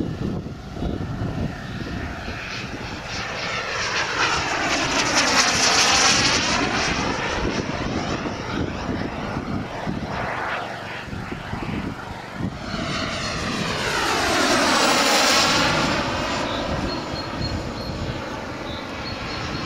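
Radio-controlled model aircraft engine running in flight aerobatics. It swells twice as the model sweeps close by, about six and fifteen seconds in, and fades between the passes.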